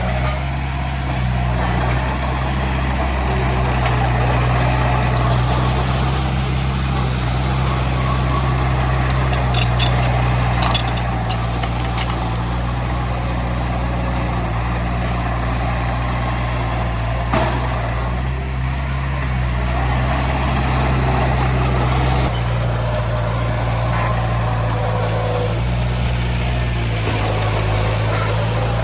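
Heavy diesel earthmoving machinery running steadily under load, with a deep, even engine note and occasional metallic clanks and knocks, one sharper knock about seventeen seconds in.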